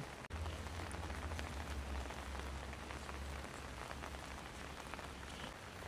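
Light drizzle falling, a soft patter of scattered raindrops, with a low rumble underneath from about half a second in until near the end.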